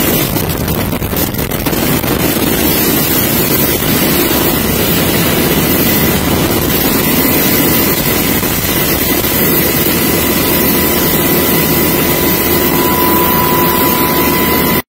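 UH-60 Black Hawk helicopter hovering close overhead: loud, steady turbine and rotor noise with a steady high whine. Wind buffets the microphone in the first couple of seconds, and the sound cuts off suddenly near the end.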